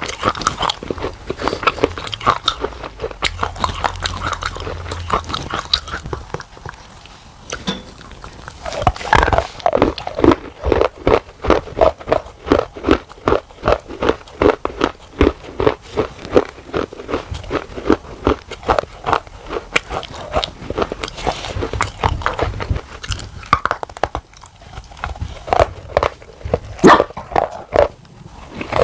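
Pieces of baked clay pot being bitten and chewed close to the microphone, a run of sharp, brittle crunches. They start softer, pause briefly, then come fast and loud, about three a second, for most of the rest of the stretch.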